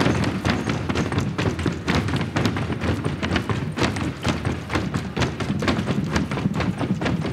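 Stomping and clapping by a group of children performing a step routine on stage: a fast, uneven run of thuds and slaps, several a second.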